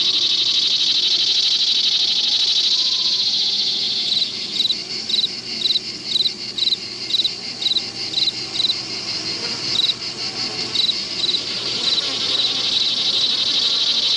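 Crickets chirping in a steady, dense chorus, with one cricket's short chirps standing out about twice a second from about four seconds in until near the end.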